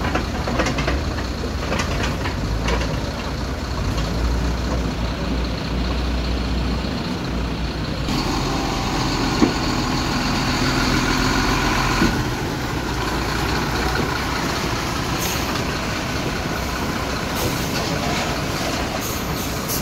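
Heavy vehicle's diesel engine running steadily, getting louder and busier for a few seconds midway, with a couple of short sharp knocks.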